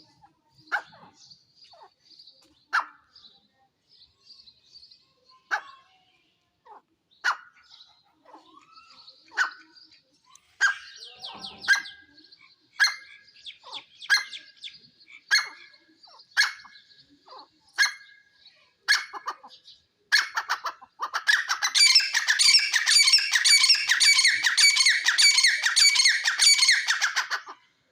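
Grey francolin calling: sharp single notes spaced a second or two apart, then a loud, fast, unbroken run of ringing calls for about seven seconds near the end.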